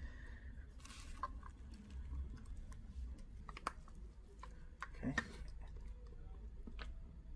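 Scattered faint clicks and taps of small plastic and metal smartphone parts being handled while the screen's flex cable is connected and the phone is put back together.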